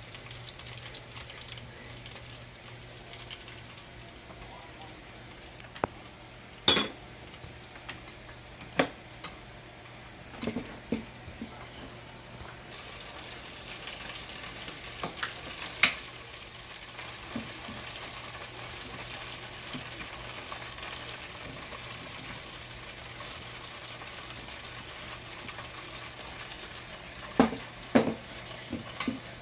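Breaded chicken frying in hot oil in an electric deep fryer: a steady sizzle that grows a little louder part way through. Several sharp metallic clicks of tongs knocking against the fryer's wire basket.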